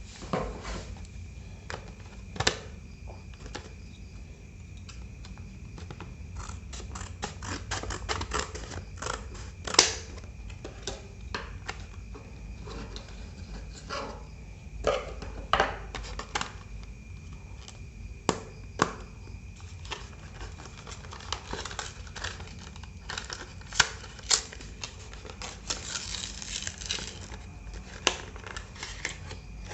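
Irregular clicks, taps and light knocks of small plastic and metal parts being handled: a laptop hard drive and its mounting bracket being taken apart and refitted, over a faint steady high whine.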